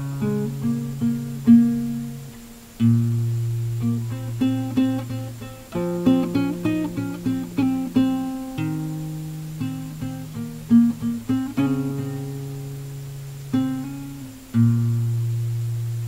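Acoustic guitar played solo, single notes plucked over held bass notes in short phrases, with a sharp loud entry right at the start.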